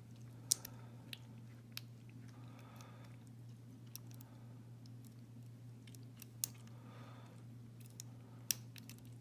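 Lock pick working the pin stack of a Wink Haus half euro cylinder: a handful of small, sharp metallic clicks scattered irregularly, about six in all, over a steady low hum.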